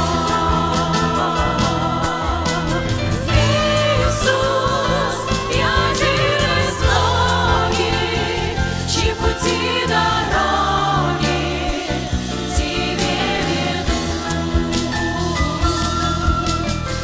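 A vocal group singing a worship song with band accompaniment, a steady bass line and drums under the voices.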